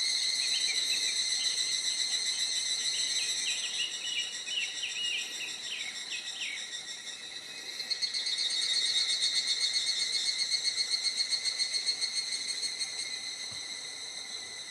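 Insects buzzing steadily at a high pitch, with a second, pulsing insect song joining about eight seconds in. Short high chirps are heard over the first seven seconds.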